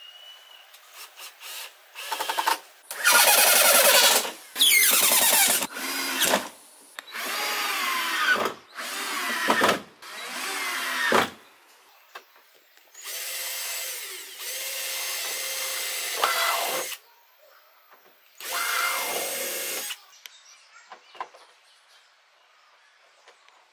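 Cordless power drill boring holes through a wooden rail and the plastic barrel hull. It runs in a string of bursts one to three seconds long, the motor's pitch rising and falling within each.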